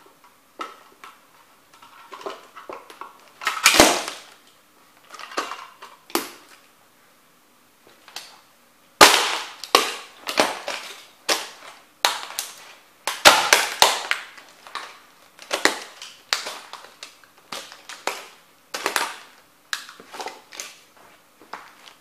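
Model train houses cracking and crunching under stomping Nike Air Max 90 sneakers: a long run of sharp snaps and crunches. The loudest cracks come about nine seconds in and again around thirteen to fourteen seconds.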